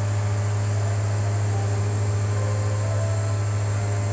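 Steady low hum with an airy whir from a propeller exhibit's drive spinning the rotor fast on its vertical shaft, holding constant without change.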